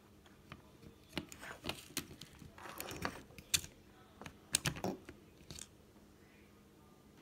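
Hand-cranked LEGO shredder grinding up dry leaves: irregular crunching and crackling mixed with sharp clicks, starting about a second in and stopping after about five and a half seconds.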